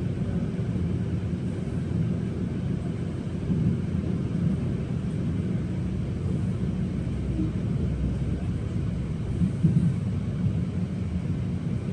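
Steady low rumble of a moving passenger train heard from inside the carriage: wheels running on the rails, with a slightly louder bump near the end.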